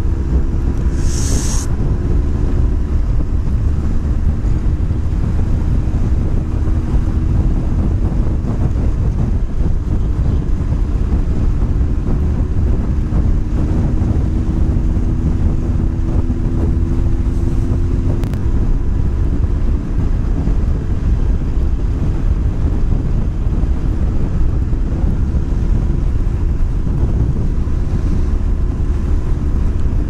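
Wind buffeting the microphone while riding a motorcycle, with the engine's steady hum underneath that drifts slowly in pitch.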